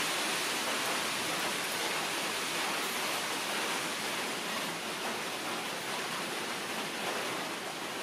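A steady, even rushing hiss with no speech, like rain or running water; its source is not shown.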